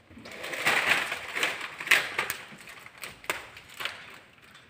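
Plastic window tint film crinkling and rustling as it is handled and smoothed by hand onto wet glass, with several sharp crackles.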